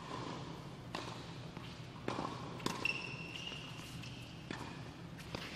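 Tennis ball struck by rackets and bouncing on an indoor hard court during a doubles serve and rally: sharp pops about every second, echoing in the hall. A brief high-pitched squeak comes about three seconds in.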